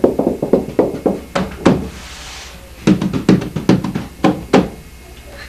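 Knuckles knocking on the plywood bottom of a home-built stitch-and-glue sailboat hull, in two runs of quick raps with a pause of about a second between them. The hollow knocks are taken as a good sound from the epoxied hull.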